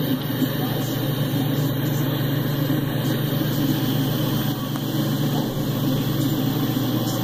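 Steady low engine rumble at an even level throughout, with no rise or fall.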